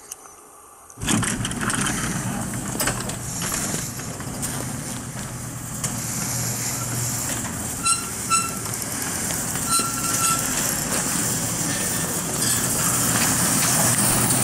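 Electric garage door opener raising a wooden sectional garage door: a steady motor hum and rumble of the door travelling up, starting about a second in and stopping abruptly near the end, with a few short squeaks midway.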